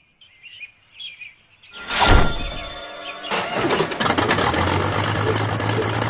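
Faint birds chirping, then a sudden loud hit just before two seconds in. From about three seconds on, a steady, dense machine-like noise with a low hum takes over.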